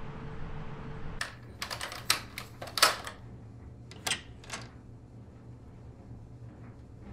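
A quick, irregular run of sharp clicks and taps, about a dozen in three seconds and loudest about halfway through, over a low steady hum.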